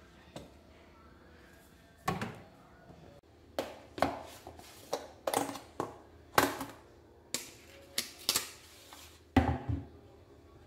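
A plastic food container and a wooden cutting board being handled on a stainless steel sink drainboard: about a dozen sharp, separate knocks and clatters, with a heavier thump near the end.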